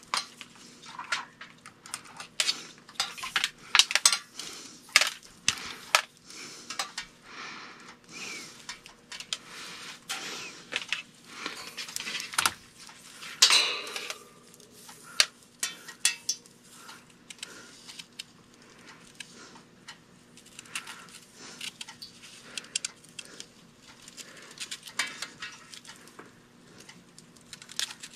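Handling noise of telephone cord and wires being coiled and bundled by hand: irregular rustling, small clicks and light clinks, with one louder clatter about halfway through. A faint steady hum runs underneath.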